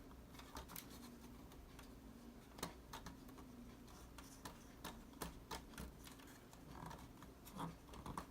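Faint, irregular light clicks and taps, about one or two a second, from handling a sewing machine's parts and tools while it is being taken apart.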